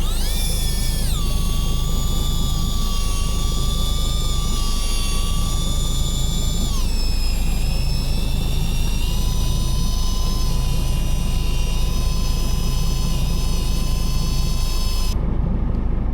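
Fishing boat's engine running with a steady low rumble, joined by a high-pitched whine that drops in pitch about a second in and again midway, then holds steady until its upper part cuts off suddenly near the end.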